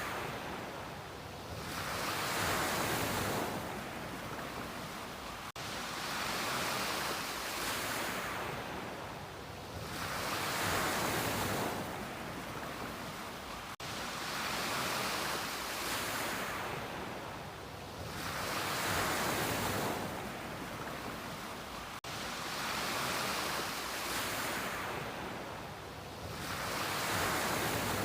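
Ocean surf breaking and washing up on a beach. It swells and fades in a slow rhythm, four surges about eight seconds apart.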